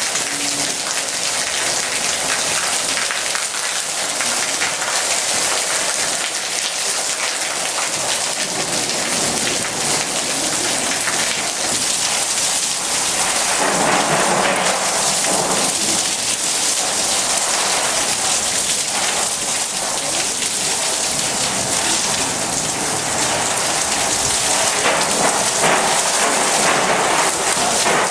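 Heavy rain pouring in a storm, a dense steady hiss, with a louder swell about halfway through.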